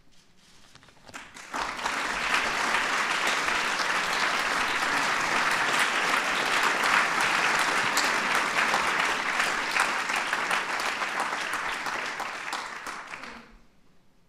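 Audience applauding: dense clapping from a large seated crowd. It starts about a second and a half in, holds steady and dies away near the end.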